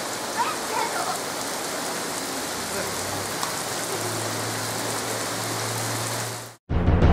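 Heavy rain pouring down steadily. Near the end it cuts off abruptly, and music with heavy drums begins.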